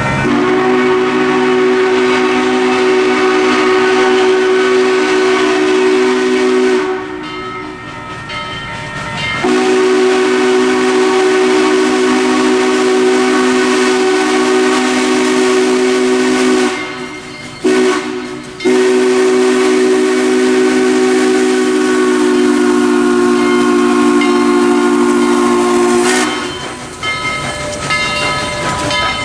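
Steam locomotive No. 4501's chime whistle blowing the grade-crossing signal as it approaches: a long blast, a second long blast, a very short toot and a final long blast, a steady chord of several tones. Near the end the whistle stops and the locomotive and train are heard rolling up to the crossing.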